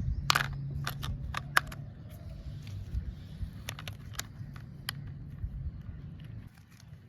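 RC toy excavator at work: a steady low motor hum with a scattering of sharp clicks and knocks, most of them in the first five seconds.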